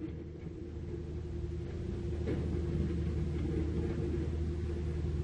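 Caterpillar 305.5E2 mini excavator's diesel engine running under load with a steady whine, growing louder over the first couple of seconds as the bucket digs into the rubble.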